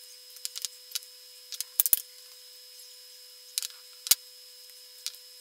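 Small clicks and taps of two large electrolytic capacitors being handled and fitted onto a circuit board. There are sharper knocks, a quick pair just under two seconds in and one more a little after four seconds.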